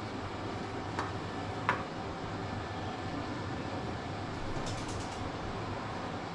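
Steady room hum like a running fan, with two light clicks a second or two in and a few faint ticks later, as of a utensil touching a plate while green chutney is spread on bread.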